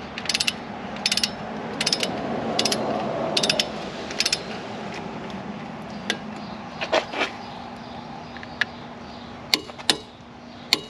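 Click-type torque wrench ratcheting as it is swung back and forth to tighten a camshaft sprocket bolt: short bursts of pawl clicks on each return stroke, coming about every 0.7 seconds at first, then slower, scattered single clicks in the second half as the bolt nears its 90 foot-pound setting.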